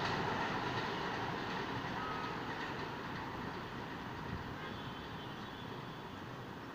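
Subway train running away along elevated track, its rumble fading steadily, with a short faint beep about two seconds in.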